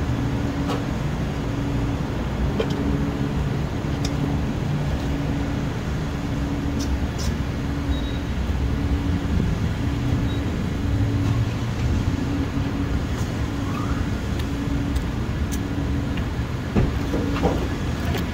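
Steady low rumble of a running vehicle engine, with a low hum that comes and goes about once a second and a few faint clicks.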